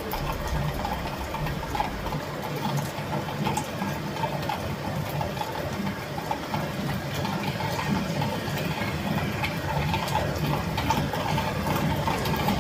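Steady rain falling, with scattered individual drops striking, over a constant low rumble.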